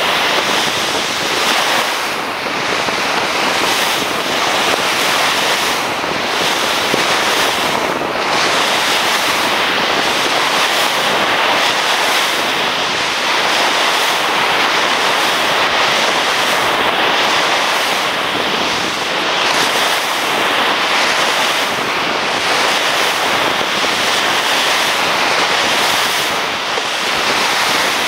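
Ocean surf breaking on the shore, with wind on the microphone: a loud, steady rush of noise that eases and swells again every couple of seconds.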